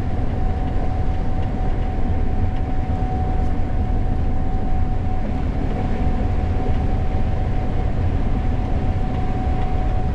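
Gleaner S98 combine running steadily under load while harvesting corn, heard from inside the cab: a constant low drone with a steady whine over it.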